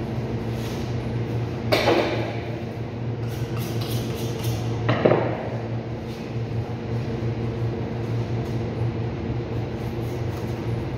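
Two heavy thuds about three seconds apart as a beef forequarter is heaved over and dropped on a plastic cutting board, over a steady low machine hum in the refrigerated boning room.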